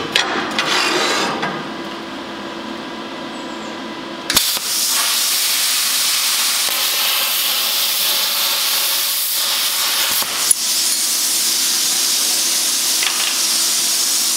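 Plasma cutter set at full power (50 amps) cutting 3 mm steel plate: the arc strikes about four seconds in and runs as a loud, steady hiss. The cut goes quickly and cleanly, the sign of full power with a fast travel speed.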